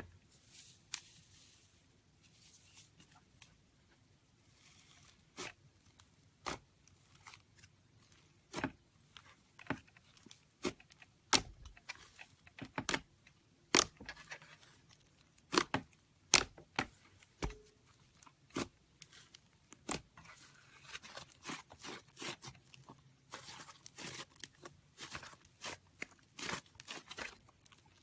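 Slime being handled for ASMR, making irregular sharp pops and clicks with a soft crackle between them. The pops come more often in the second half.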